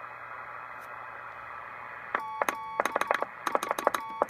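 Heathkit HW-16 transceiver with receiver hiss, then, about two seconds in, Morse code keyed in dits and dahs. It is heard as the rig's monitored CW note off the receiver with full break-in (QSK): a tone near 1 kHz with a sharp click at each key-down and key-up, and a little chirp from its crystal-controlled transmitter.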